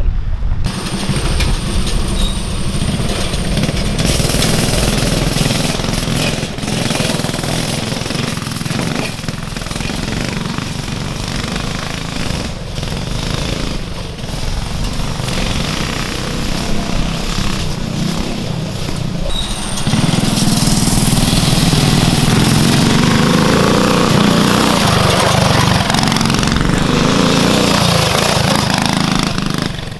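Two small 196cc single-cylinder mini-bike engines, fitted with performance parts and an aftermarket muffler, running hard as the mini bikes ride around. The sound grows louder about twenty seconds in as one bike comes close.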